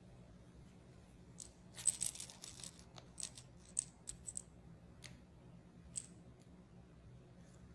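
Light metallic clinking and clicking from a small cat toy on a string as a kitten bats it: a quick flurry about two seconds in, then scattered single clicks.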